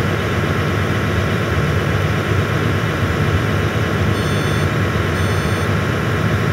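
John Deere excavator's diesel engine running steadily. Two short high beeps sound about a second apart, past the middle.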